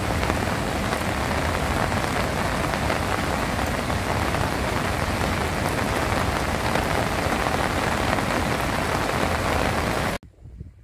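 Heavy rain falling steadily, a dense even hiss with a low rumble beneath it, cutting off abruptly near the end.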